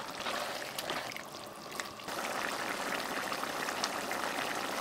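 Canned green peas tipped into a pan of pork menudo stew. About two seconds in this gives way to the stew simmering: a steady bubbling with many small pops.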